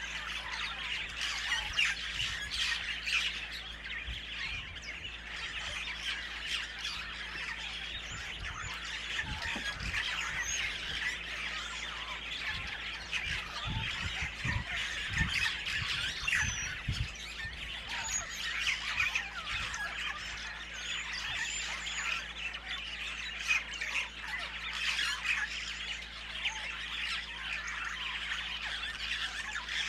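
A dense outdoor chorus of many birds calling, chirping and squawking together without a break. A cluster of low thumps falls in the middle.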